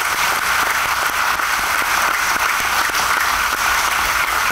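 Audience applauding: steady, sustained clapping from many hands.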